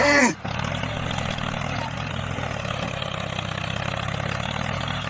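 Steady tractor-engine running sound for the toy tractor, opened by a short, loud vocal cry.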